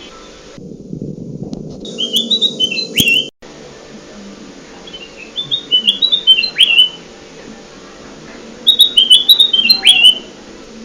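Kutilang emas (a bulbul) singing three phrases of quick, clear notes, each ending in a sharp downward slur, repeated every few seconds.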